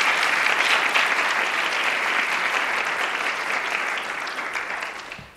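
Audience applauding, steady at first and dying away near the end.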